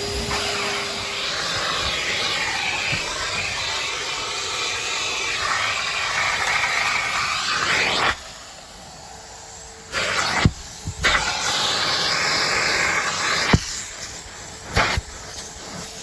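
Numatic George vacuum running with a steady hissing suction. About eight seconds in the sound drops away sharply, then comes back after a few knocks, with more knocks near the end.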